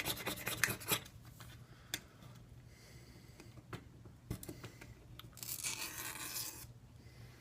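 Scraper rasping quickly back and forth over the phone's frame, clearing old screen adhesive, and stopping about a second in. After that there are a few light clicks and one more short scrape near the end.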